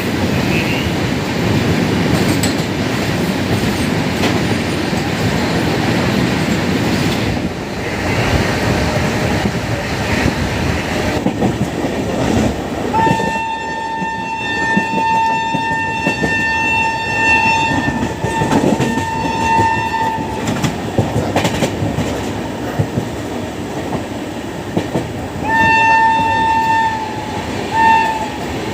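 Passenger train running at speed, wheels clattering over the rail joints. About halfway through, the hauling WAP-7 electric locomotive's shrill horn sounds a long steady blast that breaks off once, then two shorter blasts near the end.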